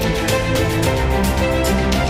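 Background music with a steady beat and held synth notes.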